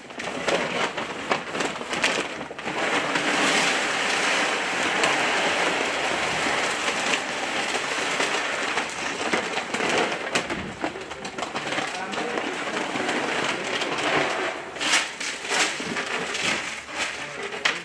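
Water softener salt pouring out of its bag into a plastic brine tank: a steady hiss of salt running in for about ten seconds. The plastic salt bag crinkles at the start and again near the end.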